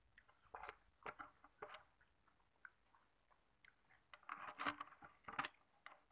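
Hard tap-water ice cubes crunched between the teeth: a few sharp cracks in the first two seconds, then a longer, louder run of crunching from about four seconds in.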